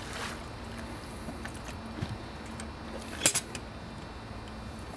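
The lid of a floating wooden fish-holding box is shut, with one sharp clack about three seconds in, over the steady wash of river water.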